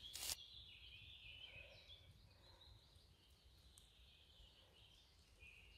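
Near silence: a short rustle of forest leaf litter right at the start, then only faint high chirping in the background.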